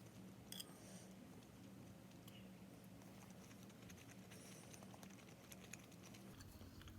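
Near silence: faint room tone with a few scattered soft clicks and ticks.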